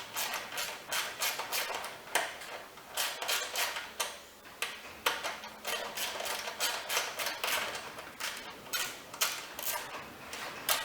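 Sockets and other metal hand tools clinking and clattering as they are rummaged through, in many quick, irregular knocks.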